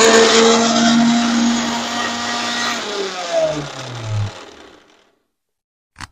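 Kitchen mixer grinder grinding ginger and garlic into a thick paste with no water. Its motor runs steadily, then is switched off and winds down with a falling whine, stopping about four seconds in. A short click follows near the end.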